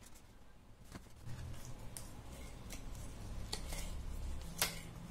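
Small cardboard box and paper booklet being handled: faint sliding, rustling and light taps as the inner tray comes out of its sleeve, with a sharper click about four and a half seconds in.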